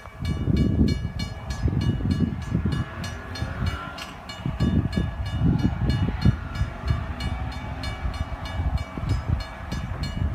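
Railroad grade-crossing warning bell ringing steadily at about three strokes a second as the crossing signals activate for an approaching train, over a low, uneven rumble.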